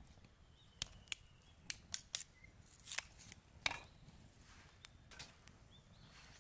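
Thin dry kindling sticks being cut and handled with a knife: about a dozen sharp, irregular wooden clicks and snaps, the loudest around the middle.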